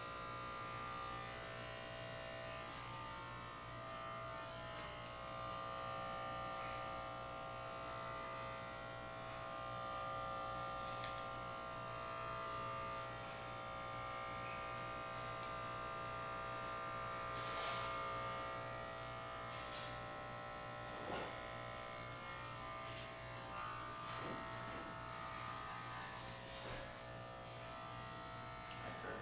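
Electric hair clippers running with a steady buzz as they shave the hair off a woman's head, with a few brief clicks in the middle.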